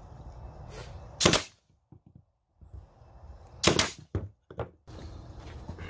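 Pneumatic nail gun firing twice into plywood riser pieces, two sharp shots about two and a half seconds apart, followed by a couple of lighter knocks.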